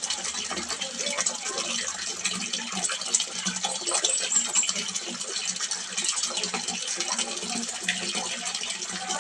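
Water splashing steadily into a small fish pond, a continuous pouring and splashing with many small droplet splashes.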